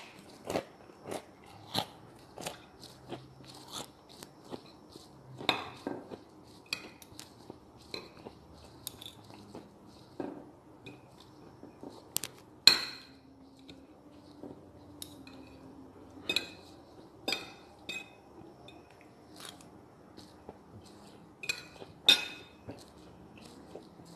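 Close-up eating sounds: irregular crunches and chewing of crisp fried food, about one a second, with a few louder cracks and clinks of a metal fork and spoon against a china plate.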